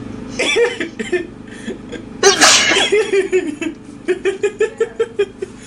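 A girl's loud sneeze about two seconds in, preceded by a short drawn-in vocal build-up and followed by a quick run of short, even catches of the voice.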